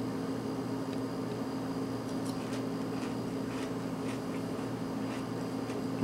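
Steady low electrical hum, with faint scattered crunches of crispy bacon being chewed.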